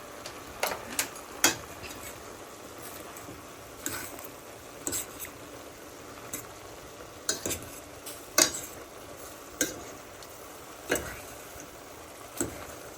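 A cooking spoon stirring beef chop suey in a pot, knocking and scraping against the pot at irregular intervals, about once a second, over a steady sizzle.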